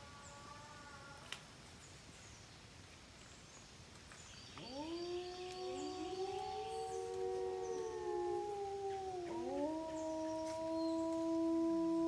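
Several wolves howling together: long howls at different pitches that rise and then hold, overlapping one another. They start about a third of the way in, dip briefly, then swell again louder toward the end. The tail of an earlier howl fades out in the first second.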